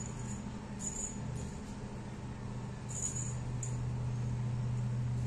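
Small bell on a spring-mounted mouse toy jingling briefly three times as a kitten paws and bites it, about a second in and twice around three seconds in, over a steady low hum.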